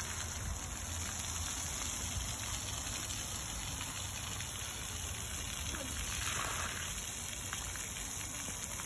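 Splash-pad fountain jets spraying water, a steady hiss of spray falling on wet concrete.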